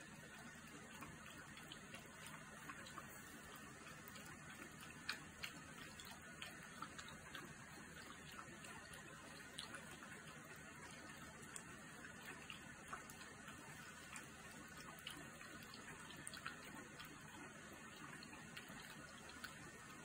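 Newborn puppies suckling at their mother: faint, irregular wet smacking and clicking over a low steady hiss.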